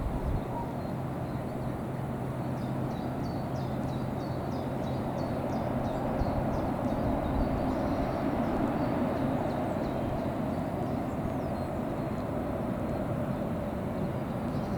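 Waterfall: falling water rushing with a steady, even roar.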